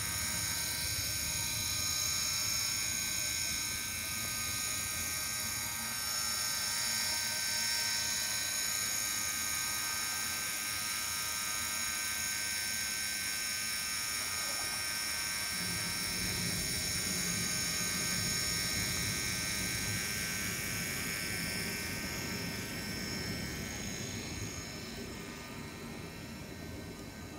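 HOn3 brass model of a GE 50-ton diesel locomotive running on track: a steady high whine from its replacement can motor and heavily reduced gearing, with a lower rolling rumble joining about halfway through. The sound fades slightly near the end.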